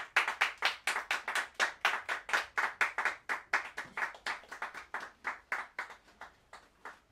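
Applause from a small audience, the claps at about four a second, growing fainter and dying away toward the end.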